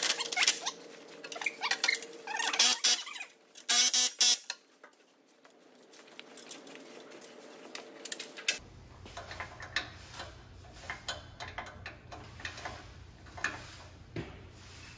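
Cordless ratchet running in short bursts, tightening exhaust pipe bolts. About eight and a half seconds in it gives way to the lighter, scattered clicking of a hand ratchet wrench snugging the downpipe flange bolts.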